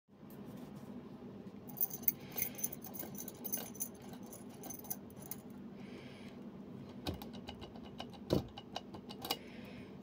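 Bunch of keys jangling on a steel key ring while the key is handled and pulled out of a Yardeni euro profile lock cylinder, giving sharp metallic clicks with a bright ring. A dull knock stands out late on.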